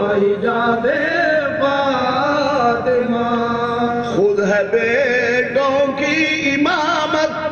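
Soz-khwani: a male reciter chanting a Shia elegy without instruments, drawing the words out in long held notes with wavering ornaments, in several phrases.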